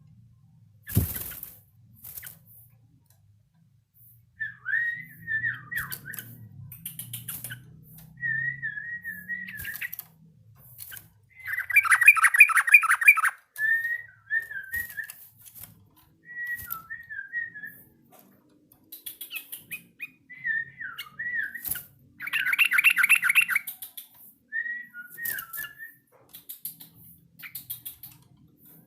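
Yellow-vented bulbul giving short warbling whistled phrases, practising its song, with two louder, rapid rattling bursts, one about twelve seconds in and one about twenty-two seconds in.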